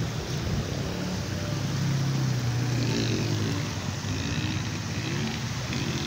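Shallow river water running over flat rock slabs, a steady rushing noise, with a low hum rising over it for a couple of seconds about one and a half seconds in.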